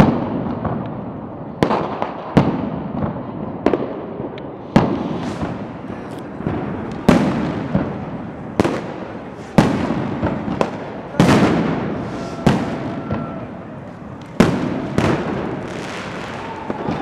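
Fireworks bursting overhead: a dozen or more sharp bangs at uneven intervals, about one a second, each trailing off in a long echoing rumble.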